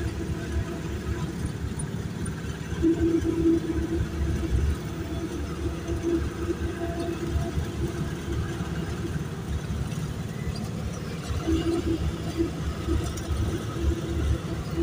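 Road noise from riding in a moving vehicle: an engine running, with a humming note that swells and fades several times, over a low, gusty wind rumble on the microphone.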